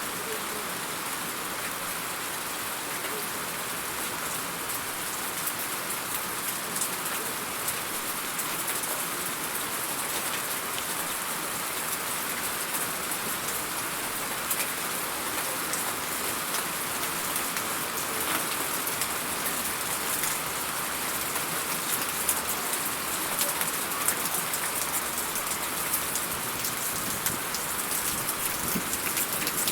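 Steady rain falling, with many sharp individual drop hits through the hiss; it grows slightly louder, with more distinct drop hits, in the second half.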